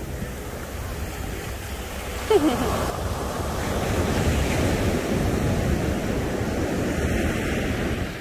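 Ocean surf breaking and washing up the beach in a steady rush. A brief falling cry sounds about two seconds in.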